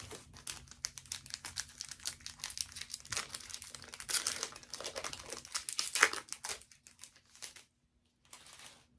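Foil trading-card pack wrapper crinkling and being torn as it is handled. Dense rapid crackling for about seven and a half seconds, a brief pause, then a short crinkle near the end.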